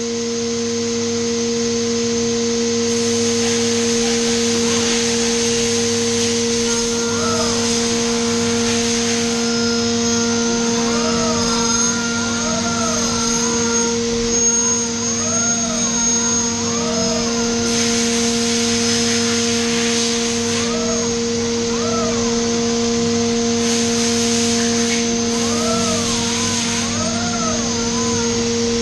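Haas 5-axis CNC mill back-chamfering with a 3 mm lollipop cutter: a steady machine hum under a hiss of coolant. From about seven seconds in, a whine rises and falls in pitch again and again, roughly once a second, as the cutter moves around the part.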